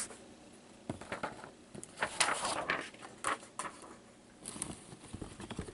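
Faint rustling with scattered light clicks and taps, from printed cards and paper being handled.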